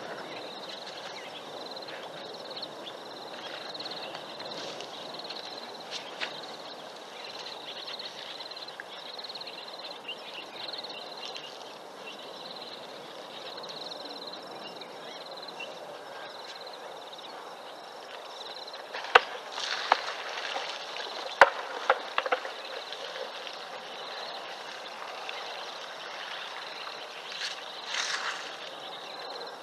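Outdoor ambience from a wildlife webcam at a waterhole: a steady hiss with a faint high chirp pulsing about twice a second. About two-thirds of the way through, a few sharp knocks come close together, and a short louder rustle follows near the end.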